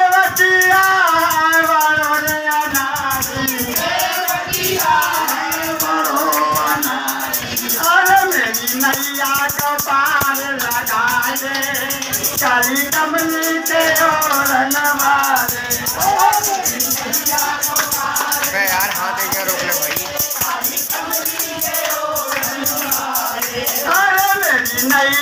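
Men singing a Hindi devotional bhajan with a chimta, long iron tongs fitted with jingles, shaken in a fast, steady jingling rhythm.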